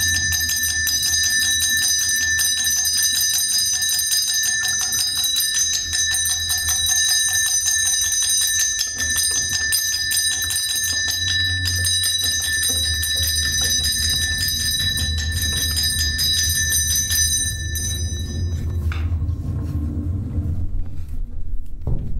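A bell ringing rapidly and continuously, its high tones held steady, over a low rumble; the ringing stops about eighteen seconds in, and a sharp knock comes near the end.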